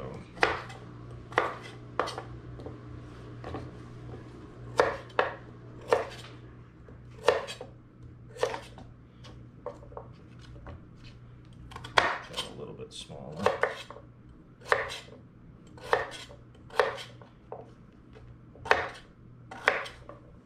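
Kitchen knife chopping sweet potatoes into chunks on a wooden cutting board: a series of sharp knocks, roughly one a second and unevenly spaced, as the blade strikes the board.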